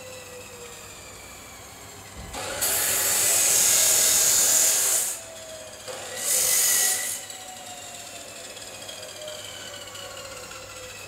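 Abrasive cut-off wheel cutting steel section in two loud bursts, the first about two and a half seconds long and the second about a second. Between and after the cuts the wheel runs more quietly, its pitch slowly falling.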